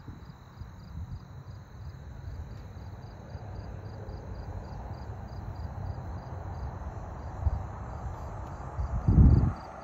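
Insects chirping steadily in a high, even rhythm of about three pulses a second over a thin continuous whine. Underneath is a low rumble on the microphone, with a louder low bump about nine seconds in.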